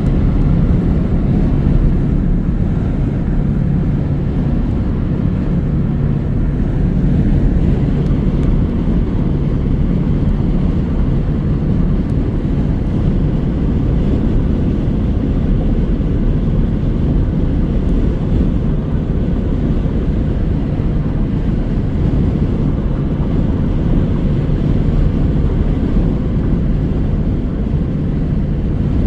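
Steady road and engine drone inside a car cabin while driving at speed, heaviest in the low end, with no distinct thunderclaps.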